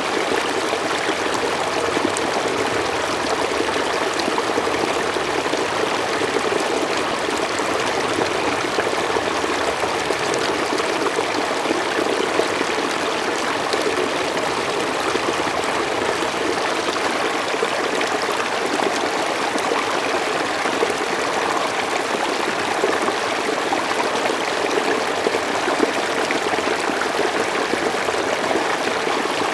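Mountain stream flowing steadily, a constant rush of water over rocks with fine trickling and splashing.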